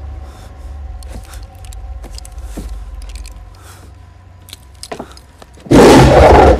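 Tense film soundtrack: a low rumble that fades, with scattered faint clicks and light metallic clinks, then a sudden loud lion roar near the end.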